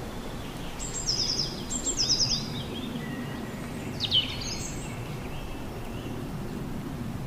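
Outdoor background noise with small birds chirping: two quick runs of high chirps about one to two seconds in, and one more short call about four seconds in.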